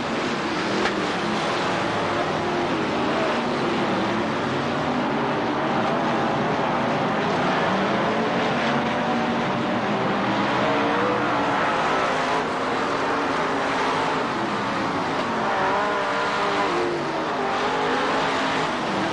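A field of dirt late model race cars running laps, their V8 engines overlapping in a steady din, with the pitch rising and falling as the cars accelerate down the straights and lift for the turns.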